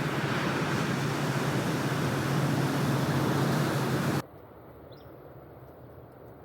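Loud, even rushing of wind and surf water buffeting an action camera during a surf session. About four seconds in it cuts off abruptly to a much quieter, duller background.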